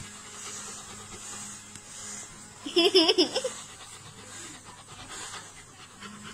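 A dog's short vocal burst, under a second long, about three seconds in: a pulsing sound whose pitch wavers up and down.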